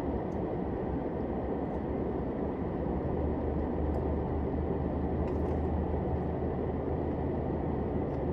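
Steady low hum and rush of a stationary car's running machinery, heard from inside the cabin, with a few faint clicks.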